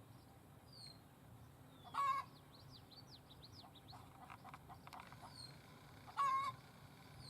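Birds calling outdoors: two loud short calls about four seconds apart, with faint quick chirps and a few high falling whistles between them.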